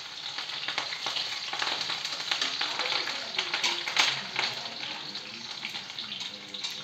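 Thinly sliced onions sizzling and crackling in hot oil in a steel kadhai, frying toward light brown, with the crackling busiest in the middle.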